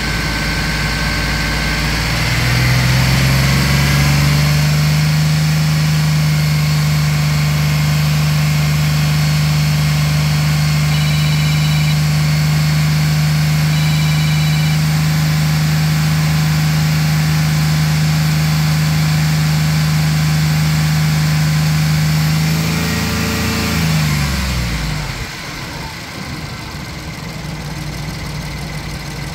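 Van engine running with the hood open: idling, then raised smoothly to a steady higher speed held for about twenty seconds, then let fall back to idle near the end.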